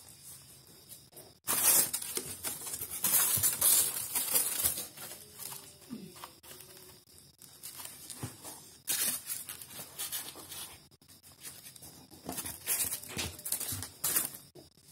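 Styrofoam packing sheets handled in a cardboard box, scraping and crackling against the cardboard and each other in two spells of handling.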